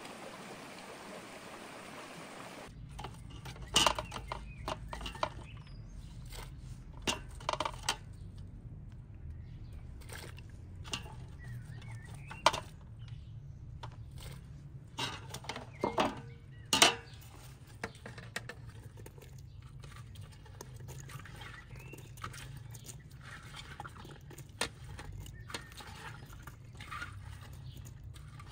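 Running stream water for the first couple of seconds, then cauliflower florets dropped by hand into a metal pot of liquid: irregular small splashes and sharp knocks, with metal clinks from the pot and a colander.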